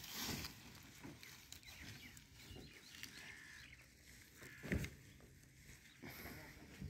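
Faint outdoor ambience with distant bird calls and one sharp knock a little past the middle.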